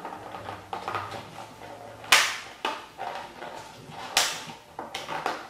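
Clear plastic clamshell container being pressed shut, its lid snapping onto the locking tabs in a series of sharp plastic clicks, the loudest about two seconds in and about four seconds in.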